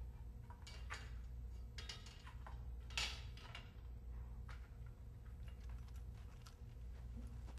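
Hands working at a sign on a wooden door: faint, scattered scratching and clicking, loudest about three seconds in, over a low steady hum.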